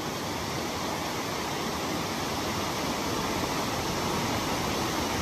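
Stream water rushing over a small cascade, a steady, even rushing.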